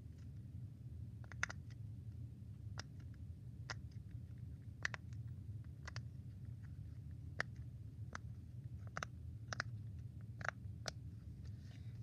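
Rainbow silicone pineapple-shaped pop-it fidget having its bubbles pressed: about fifteen short, soft pops at irregular intervals, sometimes two close together, over a steady low room hum.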